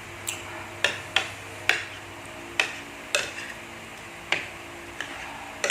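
Eating utensil clinking and knocking against a bowl while food is eaten: about nine sharp clinks at irregular gaps, each with a short ring.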